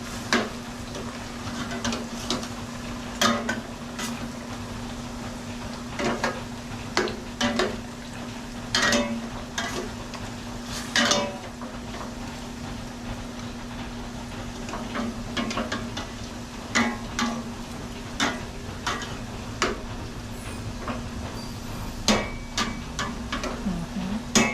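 A cooking utensil stirring and scraping food in a pan, with irregular knocks against the pan, over the steady sizzle of frying food. A low steady hum runs underneath.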